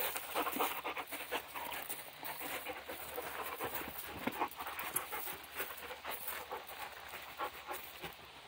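A dog panting in short, uneven breaths.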